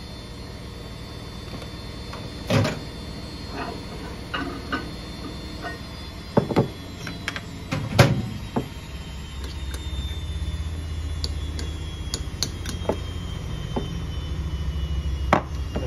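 Kitchen clatter: sharp knocks and clinks of dishes and utensils being handled on a worktop, loudest about two and a half and eight seconds in. Under it runs a steady low machine hum that grows louder in the second half.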